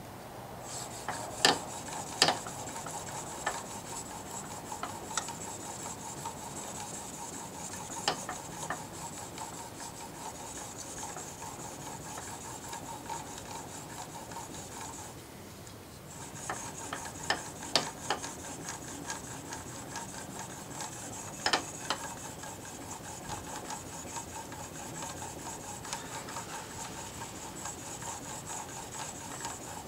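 A steel blade held in a roller-wheeled honing jig scraping back and forth on a fine diamond sharpening plate. The scraping is steady, stops briefly about halfway through, and is broken by a few sharp clicks of the jig knocking.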